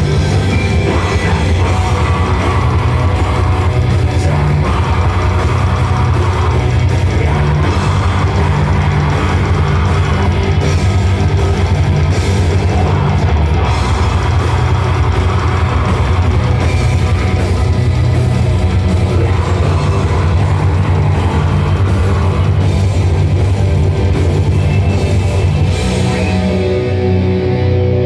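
Live metal band playing loud, with distorted guitars and a full drum kit. Near the end the drums and cymbals drop out, leaving a quieter guitar passage.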